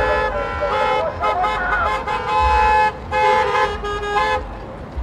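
Several car horns honking together in long, overlapping blasts that start and stop, over the low rumble of vehicle engines as cars drive off in a convoy.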